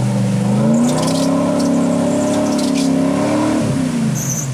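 Lifted Chevrolet Silverado Z71 pickup's engine revving as the truck ploughs through deep pond water, with water and mud splashing off its tyres. The engine pitch rises about a second in, holds, and drops off near the end.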